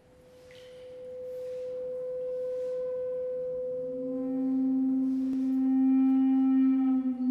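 Sustained drone tones drawn from a drum kit by extended technique through a contact microphone. A steady pure tone swells in, and about four seconds in a louder, lower tone with overtones joins it, with a few soft brushing swishes over the top.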